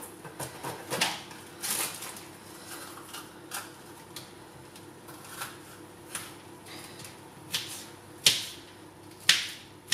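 Kitchen knife cutting a pepper on a chopping board: irregular knocks and clicks of the blade meeting the board, some sharper ones about a second in and near the end.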